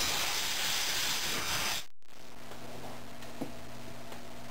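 Short blast of compressed air hissing into a carburetor well-plug bore to clean it out; the hiss lasts about two seconds and cuts off sharply.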